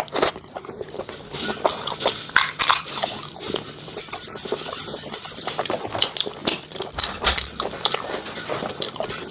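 Close-miked eating sounds: chewing with many small, irregular wet mouth clicks.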